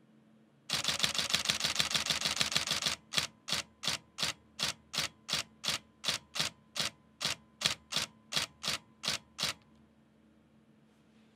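Nikon D750 DSLR's shutter and mirror firing in a continuous high-speed burst for about two seconds, then slowing abruptly to about three shots a second for several seconds before stopping. The slowdown is the camera's buffer filling with 14-bit RAW frames, so each further shot waits on writing to the card.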